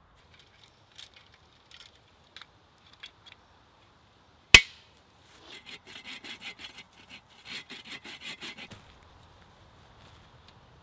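Wood being worked by hand: one sharp crack, then two bursts of quick rasping strokes, about seven a second.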